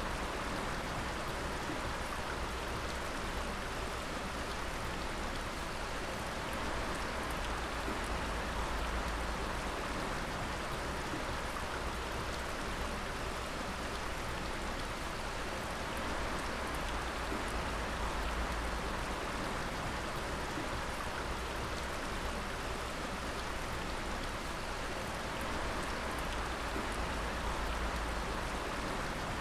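Water dripping steadily, many small drops falling over a constant wash of water noise.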